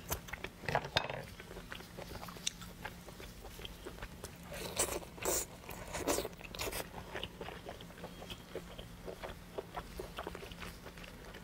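Close-miked eating sounds: wet chewing, lip smacks and bites of braised meat, with small clicks and rustles from plastic-gloved hands tearing the food apart. A faint steady hum runs underneath.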